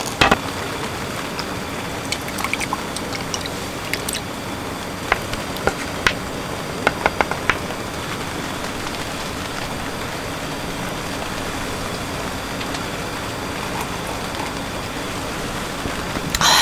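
Wine poured from a pouch into a plastic wine glass, trickling, with a few light clicks and taps in the first half. A steady hiss runs under it throughout.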